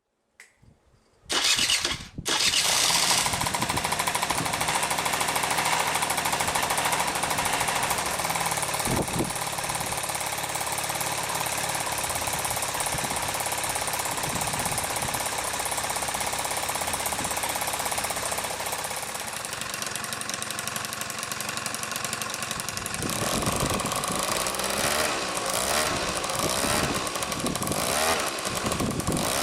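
Honda Squash scooter engine starting up after about a second and then running steadily, its note changing near the end.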